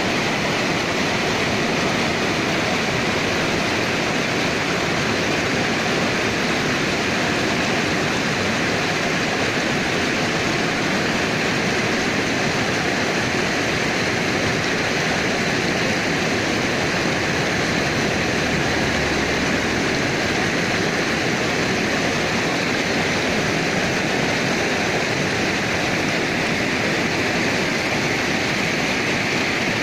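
Mountain river rushing over boulders in small cascades: a steady, even rush of water.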